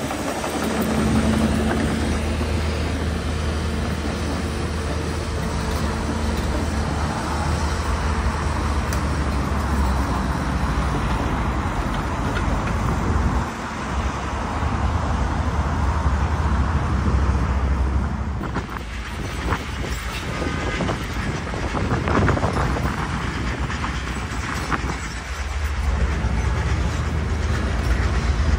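Steady low engine rumble over a noisy outdoor background, with a few brief dips in level.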